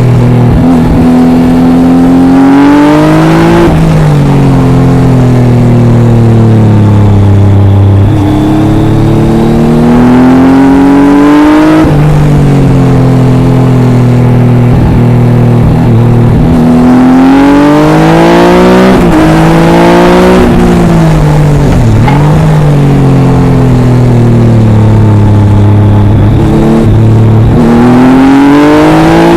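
Triumph Tiger 800 XRx's three-cylinder engine through an Arrow exhaust, heard close up from the bike, loud and continuous. The revs climb over a few seconds, drop sharply at each gear change or on closing the throttle, and climb again, over and over.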